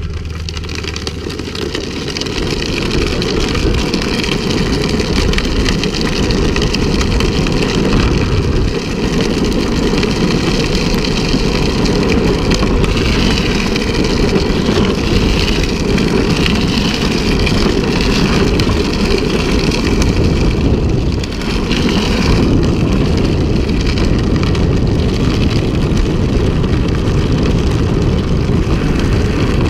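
Drift trike rolling fast downhill on wet asphalt: a steady rush of wind on the microphone mixed with the rumble of its wheels on the road.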